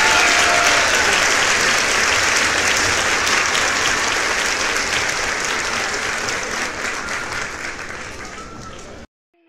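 Crowd applauding in a dense, steady patter that fades gradually and cuts off suddenly near the end.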